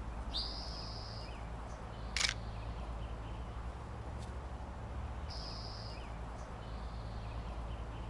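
Woodland ambience: a bird's high whistled call, about a second long and rising at its start, heard twice about five seconds apart. A single sharp click comes about two seconds in, over a low steady background rumble.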